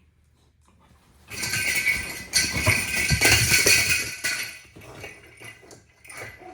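A jingling cat toy with a small ball inside, shaken and chewed by a Rottweiler puppy: a loud burst of jingling with knocks starts about a second in and lasts about three seconds, then tails off into lighter jingles and knocks.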